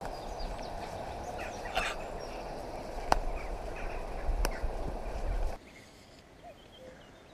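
Outdoor ambience by a river with birds calling, a steady low rumble on the microphone and a couple of sharp clicks; about five and a half seconds in the sound drops suddenly to a much quieter background.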